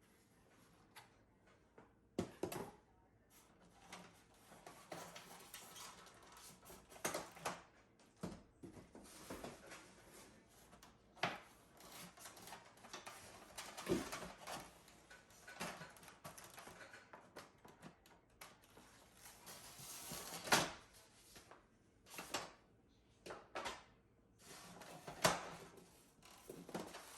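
Unpacking an incubator from its box: faint rustling of packaging and plastic, broken by a handful of sharp knocks and clunks as parts are lifted out and set down.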